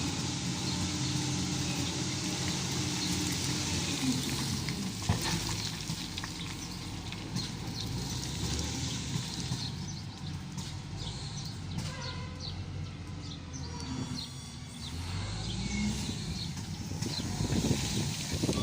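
Diesel engine of an SDLG wheel loader running under work, with a steady hiss over it. Its pitch shifts with the throttle and rises near the end.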